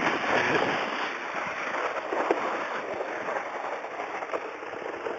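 Sled sliding down a packed snow track: a steady crackling hiss of snow under the sled.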